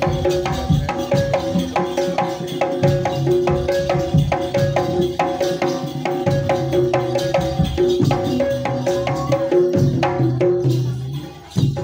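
Jaranan accompaniment music: drums with struck, ringing pitched gongs repeating a fast, even figure. The music drops nearly out for a moment near the end, then comes back in.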